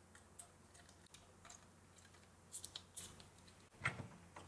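Faint light clicks and taps of a hard drive's plastic mounting bracket being handled and pushed into a computer drive bay: a few scattered clicks past the middle and a slightly louder one near the end.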